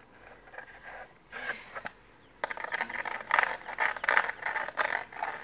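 Scraping and rustling of a button-covered art board being handled and moved, with small clicks, getting louder about two and a half seconds in.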